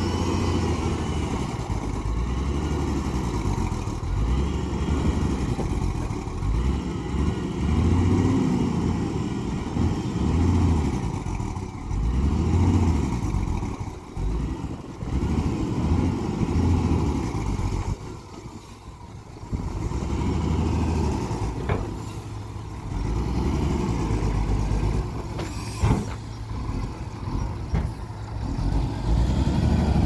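Diesel engine of a heavy dump truck running with the tipper raised, revving up and easing off every few seconds as the truck creeps forward dumping and spreading its load of soil. The engine drops back briefly a little past halfway, and there are two sharp knocks in the second half.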